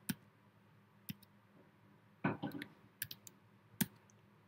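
Scattered computer keyboard key presses: single sharp clicks, roughly a second apart, with a short louder clatter a little past two seconds in.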